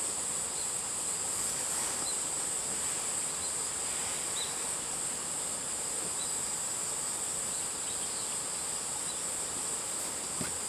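Insects chirring steadily in one continuous high-pitched drone, with a few faint short chirps over it.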